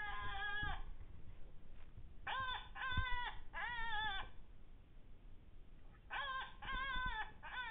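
A series of short, high, wavering cries, about seven in all, each under a second, coming in two groups.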